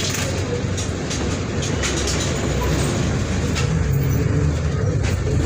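Diesel engine of a Mercedes-Benz OF 1722M bus running while under way, its note rising a little about three seconds in, with scattered rattles.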